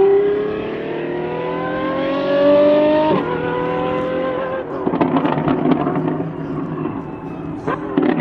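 Apollo Intensa Emozione's V12 accelerating hard, its pitch rising steadily with an upshift about three seconds in. After about four and a half seconds it comes off the throttle and the exhaust crackles and pops.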